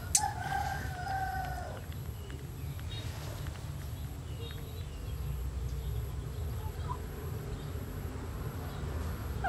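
A baby macaque cries: one long, level call about 1.5 s long that dips at the end, starting just after a click, and a short falling call near the end, over a low steady rumble.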